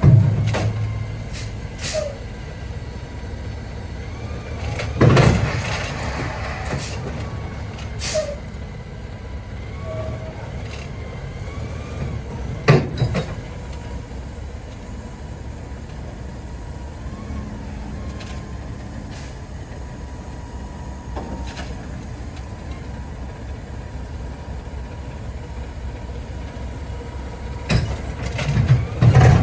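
Tractor-trailer diesel engine idling steadily, with several sharp metal clanks and thumps, one right at the start and a cluster near the end.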